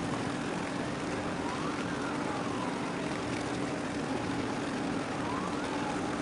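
Steady harbour drone with a constant low hum and rushing noise, over which a faint siren wails, rising and falling about twice.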